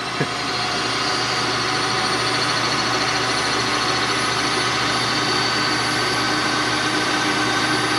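Milling machine running steadily with its spindle turning, an even motor hum with a high whine above it.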